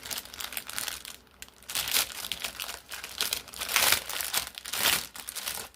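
Plastic packaging of a diamond painting kit crinkling and rustling as it is handled and opened, in irregular bursts with a short lull a little over a second in.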